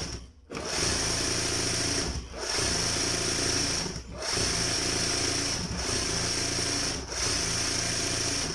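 Embroidery sewing machine running and stitching, in stretches of one to two seconds broken by brief pauses as the hoop is turned little by little.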